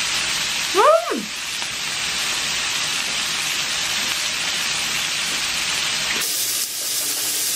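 Pork neck meat sizzling steadily on a hot pan, a continuous hiss. A short voice sound comes about a second in.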